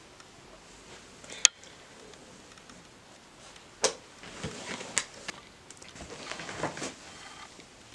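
Small handling sounds of a person moving on a sofa with a book and a mug: a sharp click about a second and a half in, a knock just before the halfway mark, another click, and soft rustling of fabric and paper.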